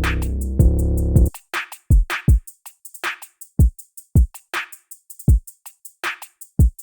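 Trap beat demonstrating 808 bass samples: a thick, distorted 808 note held for about the first second, cutting off, then short 808 hits that drop steeply in pitch. Fast hi-hat ticks run throughout, with a snare-type hit about every second and a half.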